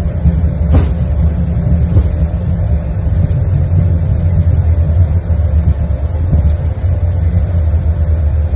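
Airbus A220 on its landing rollout, heard from the cockpit: a steady, loud, low rumble with a faint steady hum above it and a couple of faint clicks, about one and two seconds in.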